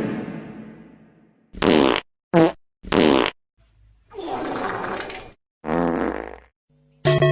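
A run of fart sound effects: five separate blasts of differing lengths, some short and some drawn out, with a wavering pitch. A falling tail from the previous sound fades out over the first second.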